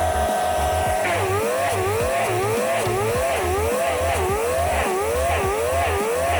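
Large wood chipper's engine running at high speed, then from about a second in its pitch dips and recovers about twice a second in an even rhythm as it takes load feeding wood.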